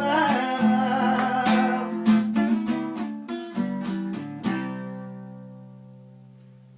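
Acoustic guitar (violão) strumming the closing bars of a song. It ends on a last chord about four and a half seconds in, which rings out and slowly fades.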